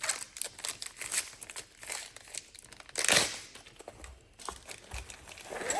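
Plastic packaging crinkling and rustling as long auger drill bits are handled, with a louder rustle about three seconds in.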